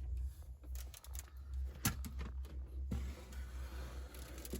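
Light clicks and knocks of a plastic humane mouse trap being eased into a cupboard, with two sharper clicks about two and three seconds in, over a low steady rumble.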